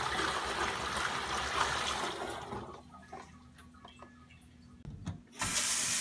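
Cold water poured from a plastic bowl through a large plastic funnel into a plastic fermenter, splashing steadily for about two and a half seconds, then dying away to a few faint knocks. Near the end a kitchen tap running into a sink starts suddenly.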